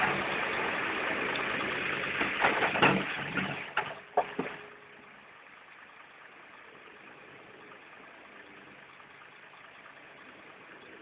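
TIG welding arc running with a steady buzzing hiss for about four and a half seconds, crackling several times near the end before it cuts off, leaving a faint low hum.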